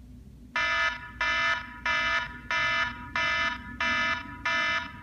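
Smartphone alarm going off: a bright electronic beep repeating evenly, about three beeps every two seconds, starting about half a second in.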